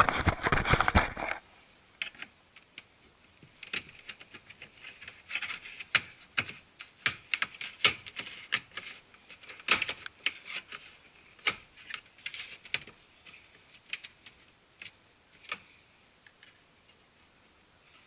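Flat-blade screwdriver prying the plastic speaker grille off a 2004–2008 Ford F-150 door trim panel. A loud scraping runs for the first second and a half, then come scattered sharp clicks and ticks of plastic.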